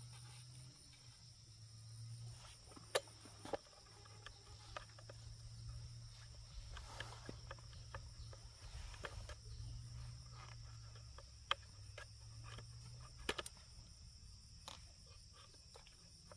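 Faint steady chirring of insects, with a low hum underneath and a few sharp clicks scattered through, the loudest about three seconds in and about thirteen seconds in.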